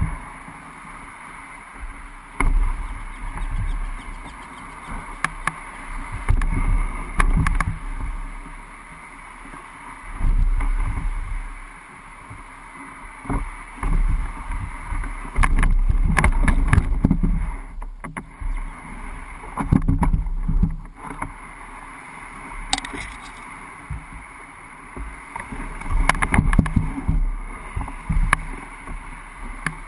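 Plastic hull of an Old Town Pack Angler canoe being dragged over grass and rough ground, heard through a camera mounted on its bow: uneven surges of scraping and rumbling, one to three seconds each, broken by sharp knocks and bumps.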